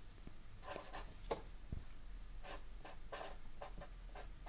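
Marker pen writing on paper: a series of short, faint strokes at irregular spacing as characters are written.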